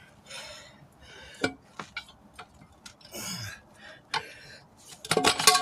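Steel tire irons clicking and clinking against the wheel rim and each other as a stiff tire is pried off its rim by hand, with a hard breath of effort about three seconds in.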